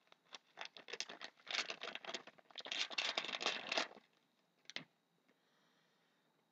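Hockey card pack wrapper being torn open and crinkled by hand for about four seconds, then a single sharp click.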